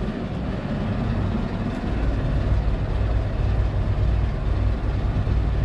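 Small fishing boat's engine running steadily at low revs, a low rumble that gets louder about two seconds in.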